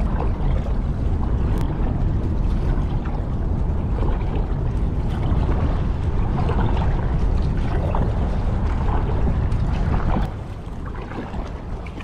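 Kayak paddle strokes splashing and water lapping at the hull, under heavy wind rumble on the action camera's microphone. The wind rumble drops off abruptly about ten seconds in.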